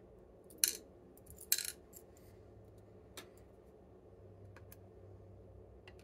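Small metal lock parts clicking and clinking as a lock cylinder is taken apart and its pins are set into a wooden pinning tray: two sharp clicks in the first two seconds, then a few lighter ticks.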